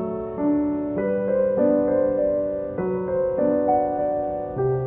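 Background piano music: held notes and chords changing about once a second.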